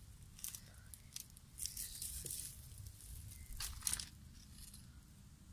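Dry leaf litter and foliage rustling and crinkling in several short spells, the loudest around two and four seconds in, over a steady low rumble.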